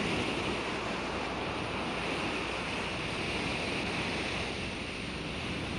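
Steady rushing noise like ocean surf, the sound track of a 1989 self-hypnosis cassette played back from tape.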